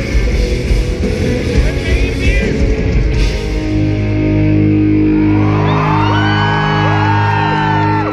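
Live pop-punk band with distorted electric guitars and drums playing hard, then about three and a half seconds in they hold a steady, ringing final chord. From about five seconds in, high rising-and-falling shouts and whoops from the crowd sound over it.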